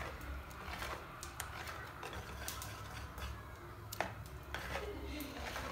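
Wire whisk beating pancake batter in a plastic bowl: a soft wet swishing, with irregular light ticks where the wires knock the side of the bowl.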